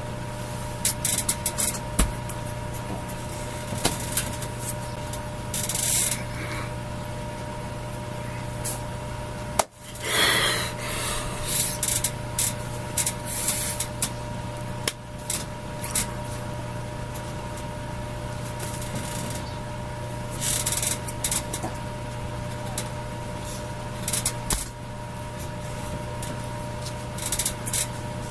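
A steady low electrical hum with a faint whine, broken by short, irregular rubbing and brushing noises and a few sharp taps as hands and clothing move close to the microphone during signing.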